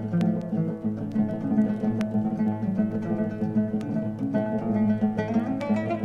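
Armenian instrumental music on plucked strings, the oud among them, with quick picked notes over sustained low notes.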